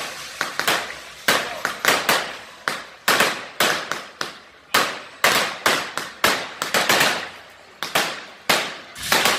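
Firecrackers going off on the ground in a rapid, irregular series of sharp bangs, about two or three a second, each with a short echoing tail.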